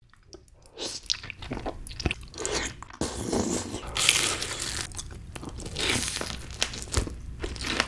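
Close-miked eating sounds: soft chewing of cheese-topped tteokbokki rice cakes, then from about three seconds in, loud crunching bites into crispy honey-glazed fried chicken, with chewing between bites.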